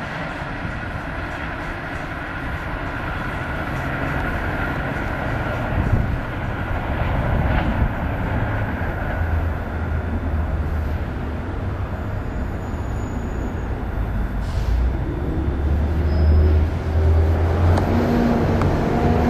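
MBTA diesel commuter train running on the tracks: a steady low rumble of wheels and engine that grows louder toward the end as the train comes closer, with an engine drone climbing in pitch over the last few seconds.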